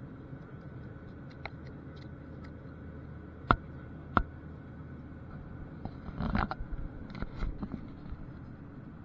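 Steady airliner cabin hum in flight, with two sharp knocks about half a second apart near the middle, then a run of rustling, bumping handling noises near the camera.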